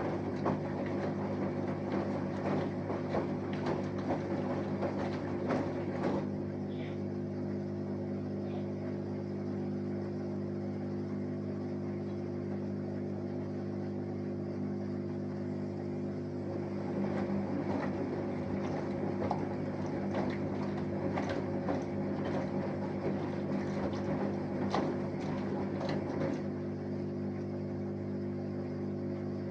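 Samsung Eco Bubble 6.5 kg washing machine running a wash cycle: its inverter motor gives a steady hum while the drum turns. Irregular knocks from the tumbling load come through during the first six seconds and again in the second half.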